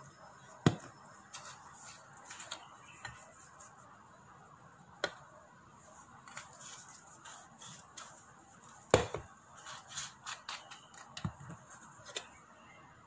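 Light clicks and taps of seasoning shakers and a metal spoon against a bowl, with two sharp knocks, one about a second in and one about nine seconds in.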